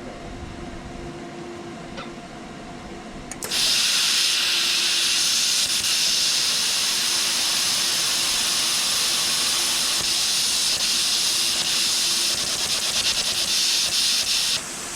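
Plasma cutter cutting thick steel plate: a loud, steady hiss of air and arc that starts suddenly about three and a half seconds in and stops shortly before the end, over a steady low hum. At this setting the cut gets only about halfway through the plate.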